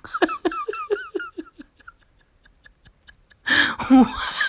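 A person giggling in a quick run of short, high-pitched pulses that fades out about two seconds in, then a louder burst of laughter near the end.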